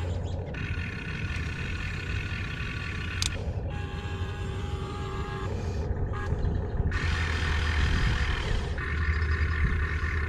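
Huina 1592 RC excavator's electric gear motors whining in spurts as the boom and arm are worked, over a steady low hum. The whine starts, stops and changes pitch several times as different functions run.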